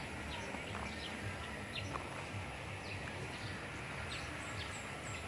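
Birds chirping: many short, high, falling chirps from several birds, over a steady low outdoor rumble.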